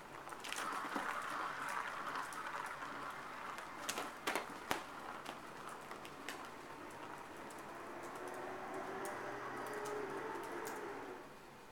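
Plastic ball rolling around the circular track of a cat's scratcher toy, a steady rattling rumble that stops near the end. A few sharp clicks come around four seconds in.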